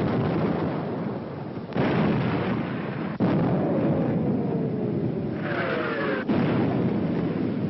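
Mortar and artillery shell explosions on an old film soundtrack: a dense, continuous rumble of shellfire with sudden fresh blasts about two and three seconds in, and a falling whistle through the middle.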